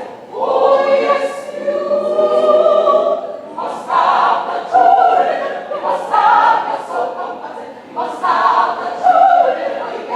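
A choir singing a song of praise to God, voices together in sustained phrases with short breaks between them.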